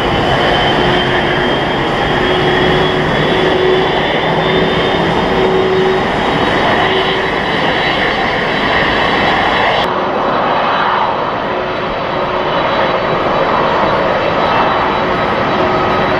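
Jet noise from a Japan Airlines Boeing 767-300ER climbing away after takeoff: a steady rush with a faint high whine that slowly rises in pitch. About ten seconds in, it cuts to the duller rush of a Japan Airlines Airbus A350-900 on final approach.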